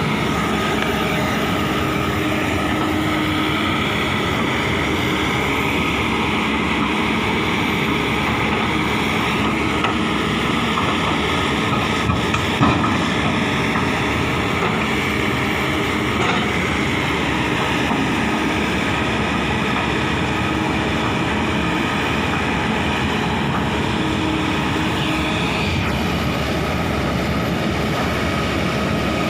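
Kobelco SK200 excavator's diesel engine running steadily, with a brief knock about twelve seconds in.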